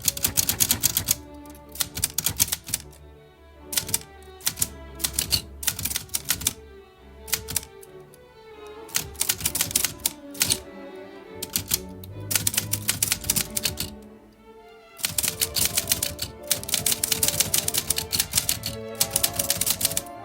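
Typewriter keys striking in quick runs of clicks broken by short pauses, with a longer unbroken run of typing near the end, over soft background music.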